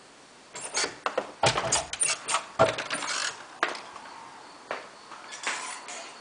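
Glazed wooden door being unlatched and opened: a run of clicks and knocks from the handle and latch, two of them heavier thumps, then a few lighter taps.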